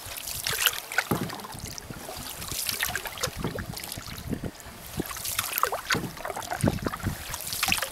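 Water splashing and trickling irregularly along the hull of a canoe being paddled across a lake, with wind on the microphone.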